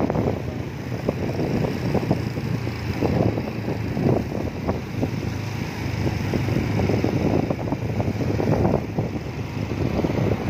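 Wind buffeting the microphone of a phone on a moving motorcycle, in irregular gusts, over the low, steady hum of the motorcycle's engine.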